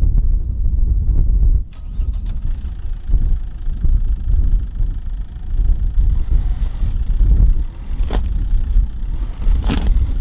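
Fiat Ducato camper van's engine running, a heavy uneven rumble, with two sharp clicks near the end.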